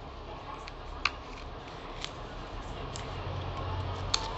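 Handling of a mini three-ring photocard binder and its clear PVC refill sleeves: a few light, sharp clicks from the rings and plastic, the loudest about a second in and near the end.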